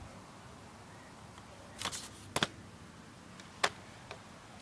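A few short, sharp plastic clicks from a 6 mm BB gun being handled before firing: a brief rattle about two seconds in, a quick double click just after, then single clicks about a second and a second and a half later.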